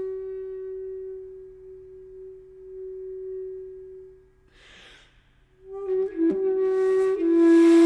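Background music on a solo flute: a long, low held note fades away, a short breathy sound follows, and a new, louder note enters about six seconds in.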